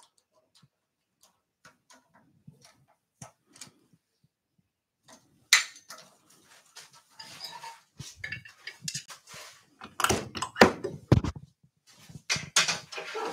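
Metal clicks and clanks of a woodturning lathe's scroll chuck being worked with its T-handle key, with the wooden blank knocking against the chuck's O'Donnell jaws. It starts with a few small clicks, then from about five seconds in there is louder, denser clattering. The lathe is not running.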